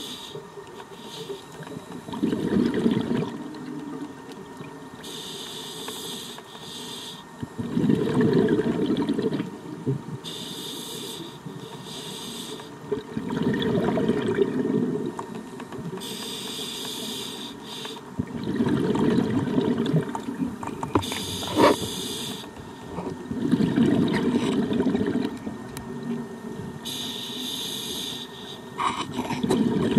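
Scuba diver breathing through a regulator underwater: a hissing inhalation, then a bubbling rush of exhaled air, repeating about every five and a half seconds. A single sharp click about two-thirds of the way through.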